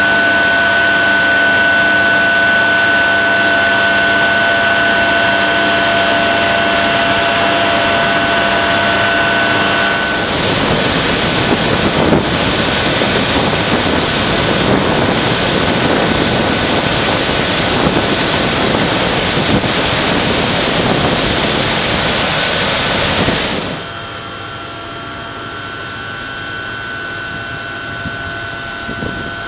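Geothermal power plant machinery humming steadily, with a high whine held over it. About ten seconds in, this gives way to the even, loud rush of water pouring down inside the cooling tower. Near the end, a quieter steady plant hum with the same whine returns.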